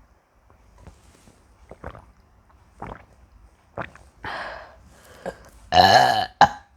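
A woman gulps milk from a bottle, one short swallow about every second. Near the end comes a loud, low belch with a wavering pitch, followed by a shorter one.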